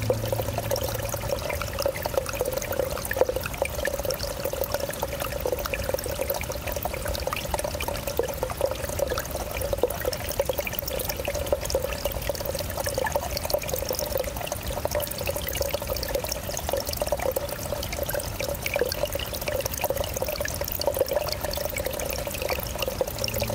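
Small forest stream trickling, a thin fall of water pouring and splashing over stones and wet leaves. It runs steady and even, with a constant note under the splashing.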